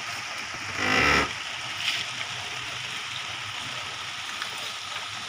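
A short pitched honk, about half a second long, about a second in, over a steady hiss.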